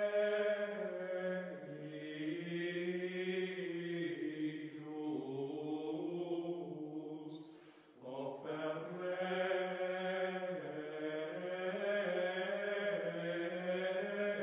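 Voices chanting slowly in long held notes, with a brief break about eight seconds in before the next phrase.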